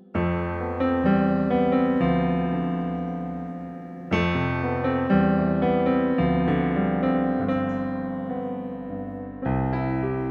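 Piano sound played on an electronic keyboard, with no singing: slow, sustained chords struck about every one to two seconds, each ringing and slowly fading before the next.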